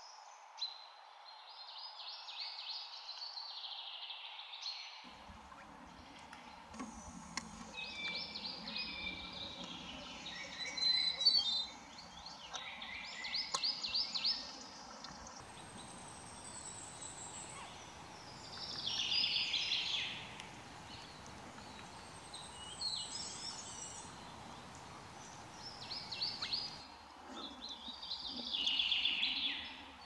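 White-whiskered laughingthrush calling: short, high bursts of rapid rattling notes, repeated every few seconds over a steady background hiss. The background hiss changes abruptly a few times where the field clips are cut together.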